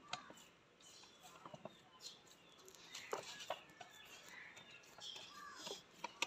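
Chickens clucking faintly in short calls, mixed with light clicks and taps of hands working dough against a steel bowl, and one sharper tap near the end.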